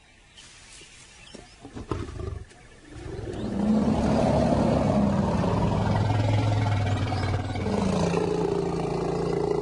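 Lion roaring: a deep, long call that starts about three seconds in after a quieter opening. It dips briefly two-thirds of the way through, then carries on as a second long call.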